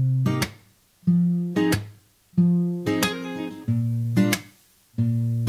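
Acoustic guitar music played back from a cassette recorded on the Pioneer CT-S430S deck without Dolby noise reduction. Chords ring out one after another with short pauses between, each ending in a couple of quick strums, and faint tape hiss shows in the pauses.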